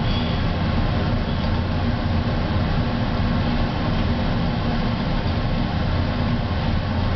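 Laboratory fume hood exhaust fan running: a steady low drone with an even rush of air.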